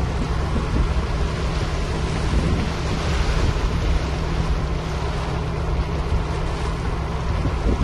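Wind rushing and buffeting on the microphone, with a steady low hum underneath.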